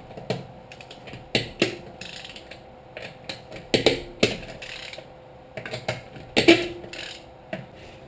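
Steel lug wrench fitted onto wheel lug nuts and levered to break them loose: irregular metallic clicks and clanks, the two loudest (a little before halfway and about three-quarters through) ringing briefly.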